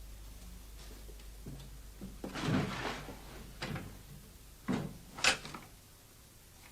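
A few separate knocks and clatters, like objects handled or set down or a door or drawer worked. The longest and loudest comes about two and a half seconds in, with a sharp knock near the end, over a low steady hum.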